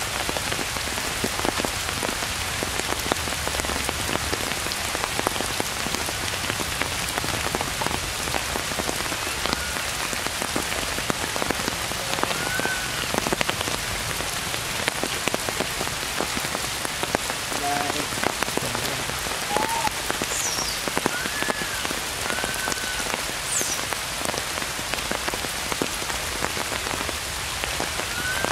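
Steady rain: an even hiss of many drops. In the second half there are a few short, faint chirping calls.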